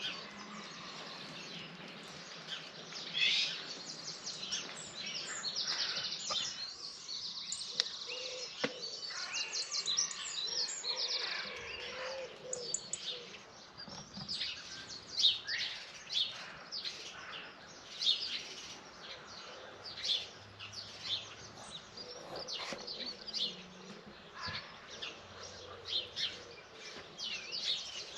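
Early-morning dawn chorus: many songbirds singing at once, with overlapping chirps, whistles and calls. A dense, fast run of notes stands out about six to eleven seconds in.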